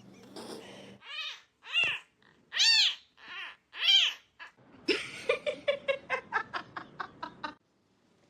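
A cat meowing four times, each call rising and then falling in pitch, followed by a quick run of about a dozen short, clipped calls at roughly six a second.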